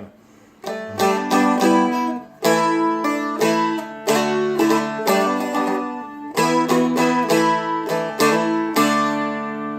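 Seagull Merlin, a four-string dulcimer-style fretted instrument, strummed through a chord progression with a little picked melody woven in. The strumming starts about half a second in, with sharp attacks and ringing chords.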